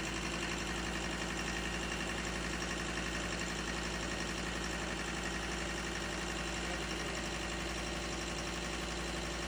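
Ford Ranger 3.2 five-cylinder diesel engine idling steadily with a misfire ('missing'), which the mechanic traces to a faulty injector.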